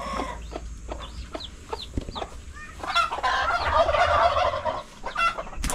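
A chick peeping in short, high, falling chirps among clucking chickens, with a louder stretch of chicken calls in the second half and a sharp knock near the end.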